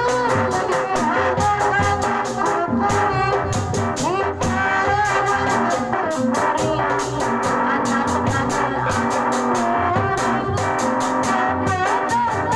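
Sundanese procession music: drums keep a fast, steady beat under a wavering, sliding melody line.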